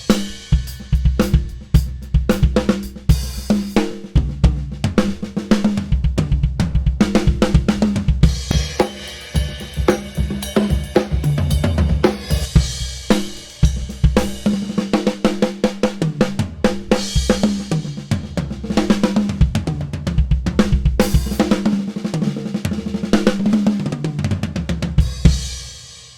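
Drum kit played in a busy groove with fills: kick drum, snare, hi-hat and cymbal crashes, over a steady low bass line. The playing dies away just before the end.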